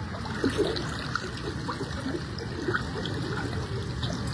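Floodwater flowing steadily in a strong current, with small splashes scattered through.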